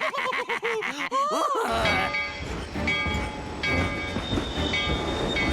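A quick string of short, bouncing pitched vocal sounds comes first. Then, from under two seconds in, a cartoon train sound effect takes over: a low, steady rumble with a held whistle tone above it.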